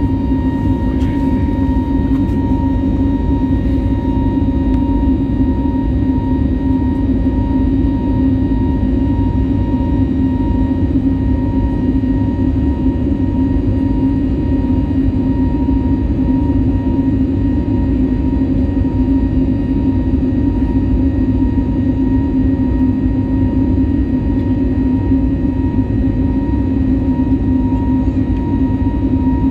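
Cabin noise of an Airbus A320neo with CFM LEAP-1A engines climbing after takeoff: steady, loud engine and airflow noise with a constant low drone and a thin steady whine above it.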